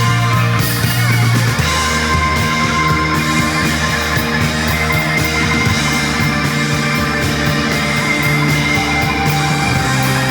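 Live rock band playing: distorted electric guitars, bass, drums with busy cymbals, and keyboard, with the bass moving between held notes every second or two.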